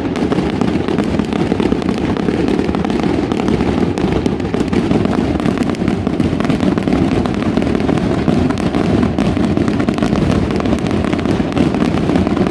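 Fireworks bursting in a dense, unbroken barrage: many bursts and crackles run together at an even, loud level with no pauses.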